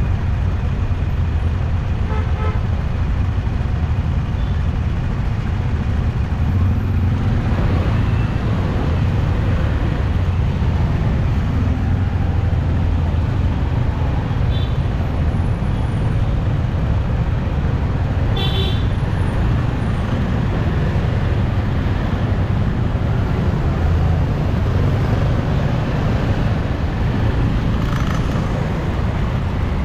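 Street traffic: a steady low rumble of passing motor vehicles, with a short horn toot a little past halfway and fainter ones earlier.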